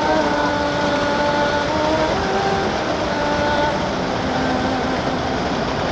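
Rushing water of a small stream cascade pouring over rocks, a steady hiss, with faint sustained musical tones underneath that change pitch a few times.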